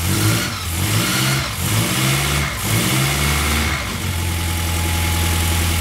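Ford 8 Model Y four-cylinder sidevalve engine running on choke just after being started following a valve regrind and fuel pump replacement: it runs unevenly with regular surges and the revs rising and falling, then settles into a steady idle about four seconds in.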